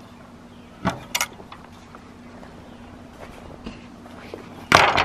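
Metal latch on a wooden gate being worked and clicking shut: two sharp clicks about a second in, then a louder brief knock near the end. A faint steady hum lies underneath.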